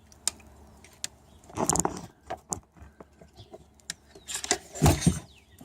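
Metallic clicks and jangling from handling solar-panel cables and their clip-on connectors, with two louder clattering bursts about two seconds and five seconds in.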